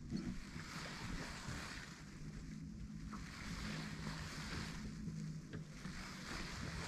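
A boat's motor humming steadily at a low pitch, under the hiss of wind and water that swells and fades every second or two.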